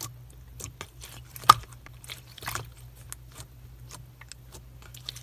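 Crunchy slime being pressed and worked by hand, giving scattered crackles and small clicks, with one sharper pop about one and a half seconds in.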